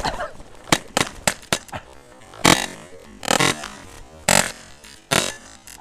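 Paintball markers firing: a quick string of sharp pops in the first two seconds, then four louder, longer blasts about a second apart.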